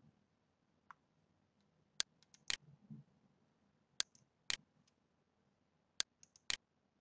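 Computer mouse clicking: sharp clicks in pairs about half a second apart, coming every two seconds, with a few fainter clicks in between.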